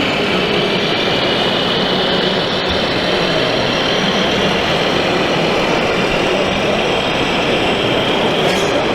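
Steady mechanical running noise at an even level, with a faint high whine over it.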